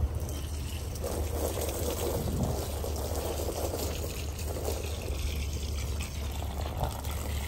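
Water from a garden hose pouring and trickling into a plastic bowl, over a soapy plush toy that is being rinsed and squeezed.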